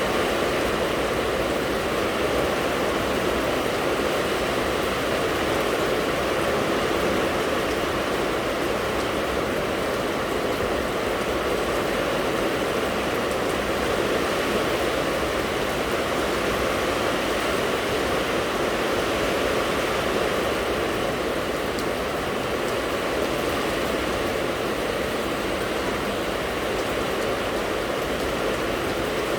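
Steady rain falling, a continuous even rushing hiss with no breaks or separate drops standing out.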